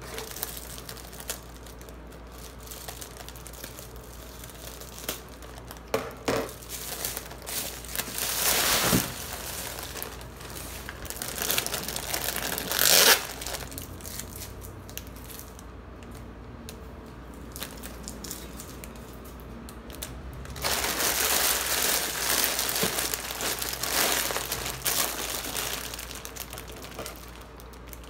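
Plastic bubble wrap and the plastic wrappers of instant-ramen multipacks crinkling and rustling as they are pulled apart and handled. Louder spells come about 8 and 13 seconds in, and a longer one from about 21 to 25 seconds, with quieter rustling between.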